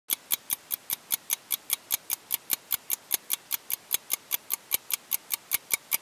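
Ticking sound effect in the manner of a clock or stopwatch: sharp, even ticks about five a second.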